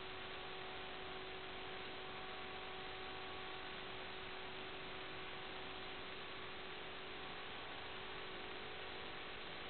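Steady static hiss with a few faint, unchanging hum tones: the noise of an analog FPV video link's audio channel, picked up by the receiver and recorded with the video.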